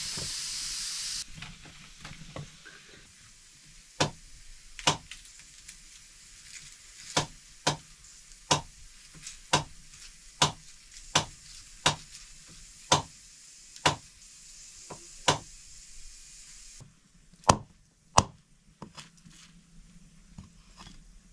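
Hissing sizzle from a hot pan that cuts off about a second in, then a knife chopping on a board: about a dozen sharp chops, a little under one a second, ending with two quick strokes.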